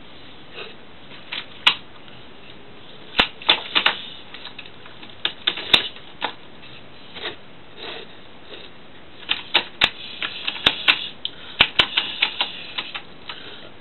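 Small toy train pushed by hand along a wooden window sill, its wheels and body clicking and clacking irregularly, the clicks coming thickest near the end.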